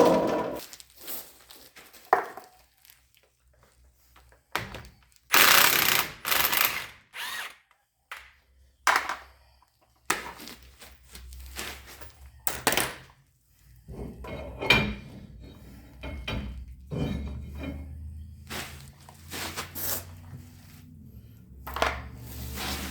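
Power tool run in several short bursts during work on a truck's rear axle, then a steady low mechanical hum that sets in about halfway through, with further clatter over it.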